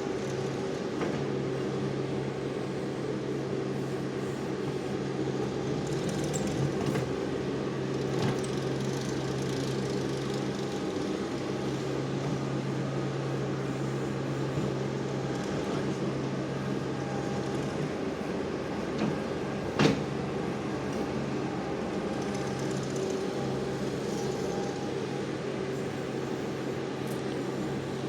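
Compact track loader's engine running steadily, its pitch shifting slightly now and then, with one sharp knock about twenty seconds in.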